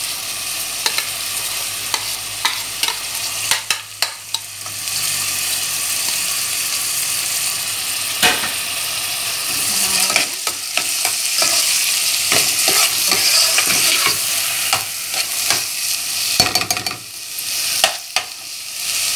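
Raw white rice frying in oil with chopped onion, tomato and chile, sizzling steadily while a metal spoon stirs it, scraping and clicking against the pot.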